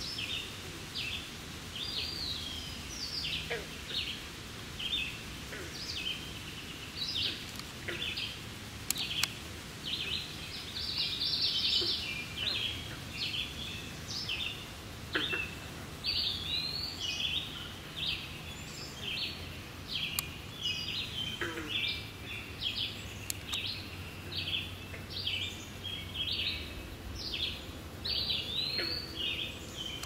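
Songbirds singing in a busy chorus, many short chirps and whistled notes overlapping without a break, over a faint low background rumble.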